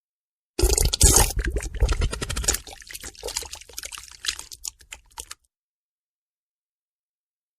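Fart sound effect: a long sputtering fart made of a rapid string of pops, loudest in its first couple of seconds, then breaking up into scattered sputters and stopping about five seconds in.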